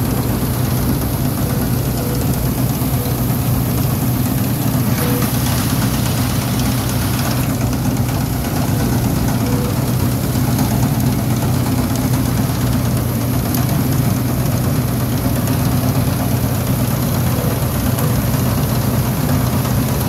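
Combine harvester engine running steadily under load as it cuts standing wheat, a loud, even drone with a deep hum heard close up.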